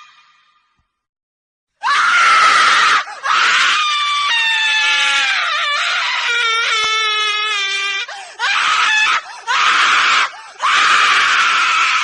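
A woman screaming in shrill, high-pitched cries after a brief silence: a short scream, then a long one that falls in pitch and wavers, then three shorter screams.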